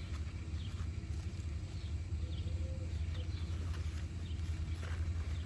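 Birds chirping with short falling calls, repeated about every second, over a steady low rumble.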